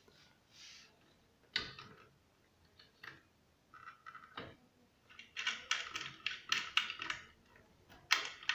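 Plastic monitor stand base being unscrewed by hand. Scattered sharp clicks come first, then a quick run of clicking and rattling about five seconds in as the screw turns and the base works loose.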